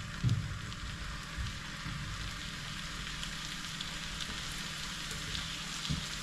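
Red rock cod fillets frying in butter in a pan, a steady sizzle with small crackles and spits. A light knock comes just after the start.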